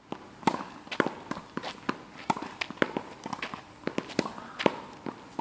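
A quick, irregular series of sharp clicks or taps, about three a second, some with a brief ring, over a faint background hiss.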